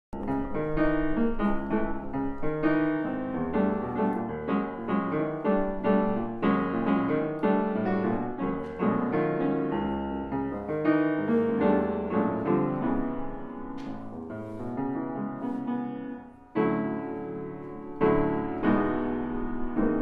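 An 1897 Chickering grand piano, with its original soundboard recrowned, being played: a continuous passage of notes and chords, broken by a short pause about sixteen seconds in before a fresh chord sounds.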